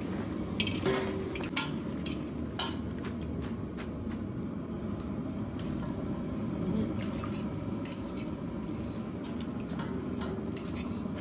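Scattered clinks and taps of kitchen utensils, a wire strainer and ladle against an iron kadhai and steel bowls, while fox nuts roast in ghee, over a steady low rumble.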